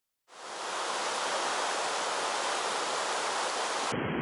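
Mountain stream running over rocks: a steady rush of water that fades in just after the start. Near the end it changes to a deeper, duller rush.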